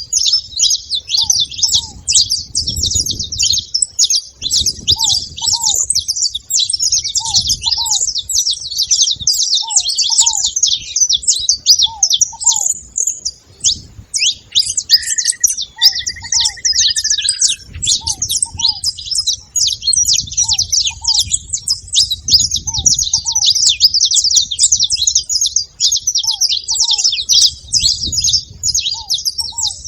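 A flock of saffron finches chirping and chattering constantly, many high calls overlapping. Under them, a fainter low two-note call repeats every second or two, and a single longer falling whistle sounds about halfway through.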